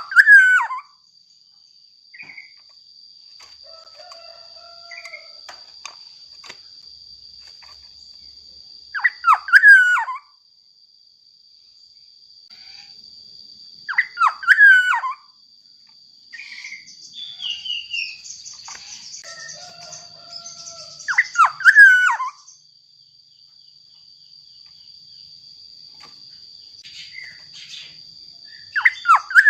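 Black-naped oriole (kepodang mas) singing short loud fluty whistled phrases with sliding notes, one about every five to seven seconds.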